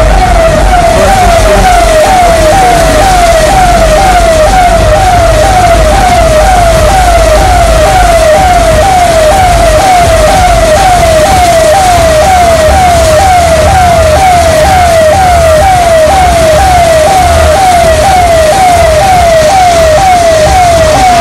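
Electronic siren sounding steadily, a fast repeating falling tone about two sweeps a second, over a low rumble.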